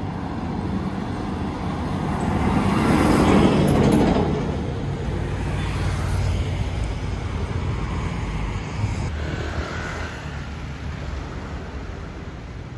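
Street traffic noise with a motor vehicle passing close by, swelling to its loudest about three to four seconds in and then fading to a steady rumble.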